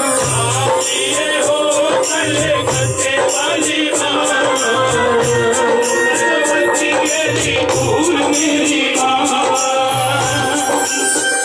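Live Himachali devotional bhajan music played loud over a sound system. A steady drum beat lands about once a second under fast jingling rattle-type percussion and a sustained melody line.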